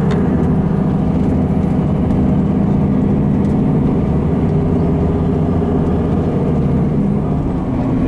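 A moving road vehicle heard from inside its cabin: a steady low engine hum with road noise.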